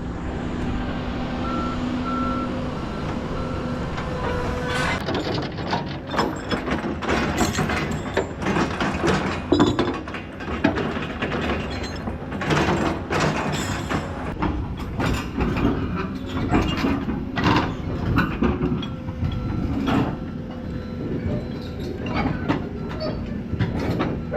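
Komatsu 228 excavator's diesel engine running while its travel alarm beeps, then from about five seconds in its steel tracks clank and bang repeatedly as the machine travels.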